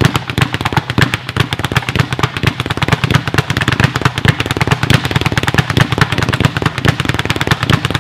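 Speed bag being punched in a fast, unbroken rhythm, the bag rebounding off its wooden platform in a rapid rattle of knocks, several a second, like a little drum cadence.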